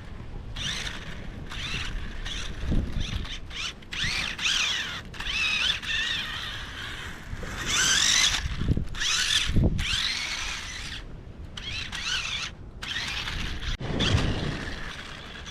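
Small electric motor of a toy RC car whining as it drives, its pitch rising and falling with speed, cutting out briefly a few times near the end. The motor is run from a 9-volt battery through an added circuit board. Under the whine is a low rumble from the wheels.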